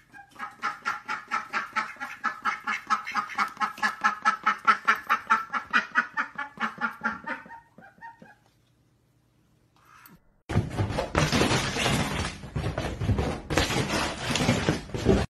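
Indian Runner duck quacking in a rapid, even string of short calls, about five a second. The calls stop after about seven seconds. After a short gap, a loud rough noise of a different kind takes over for the last five seconds.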